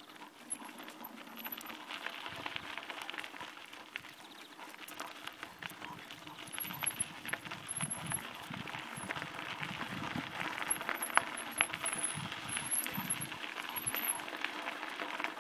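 Bicycle tyres rolling over a gritty gravel track, a steady crunching rustle full of small clicks of grit, growing louder about halfway through as the pace picks up.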